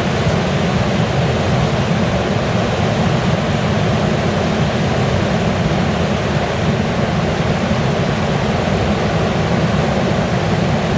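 Rushing river rapids: a loud, steady roar of whitewater tumbling over boulders.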